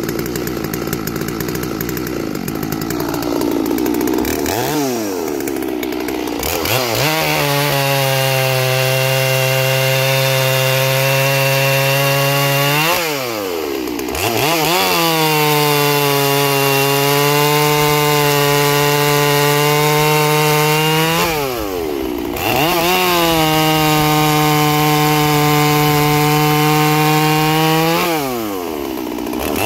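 Blue G466 two-stroke chainsaw, its ignition timing advanced, running a 3/8 chain through an ironbark log at full throttle. It idles unevenly at first and revs up about five seconds in. It then holds steady revs under load, with the throttle dropping briefly and picking back up twice between cuts and again near the end.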